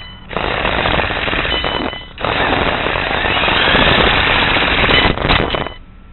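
Electric RC car driving over asphalt, heard through a camera mounted on its own chassis: a loud, dense rattle of chassis and tyres with a faint high motor whine at times. It breaks off briefly twice, then drops away about six seconds in as the car stops in grass and gravel.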